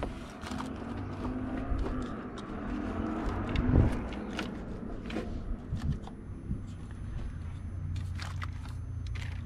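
Scattered clicks and scrapes of hands handling wiring and connectors in a car's engine bay, with a louder knock about four seconds in, over a low steady hum.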